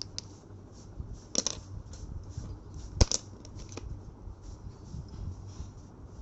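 Small plastic slime-kit containers being handled while red colour is added to the glue: scattered clicks and rustles, with one sharp click about three seconds in, over a low steady hum.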